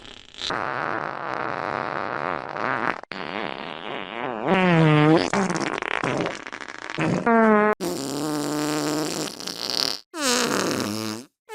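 A string of fart sound effects cut back to back, about four separate clips that stop abruptly at each cut. Most are buzzy and pitched, and one about halfway through sags and then rises in pitch.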